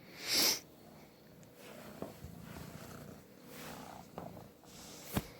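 Kitten purring steadily, with a brief loud rustle about half a second in and a sharp click near the end.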